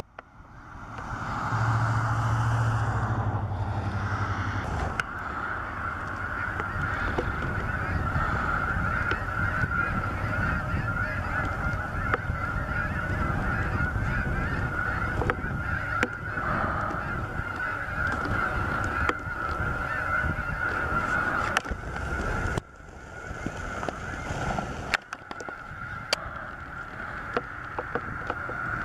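A large flock of snow geese honking continuously, a dense chorus of many overlapping calls, with brief dips twice near the end.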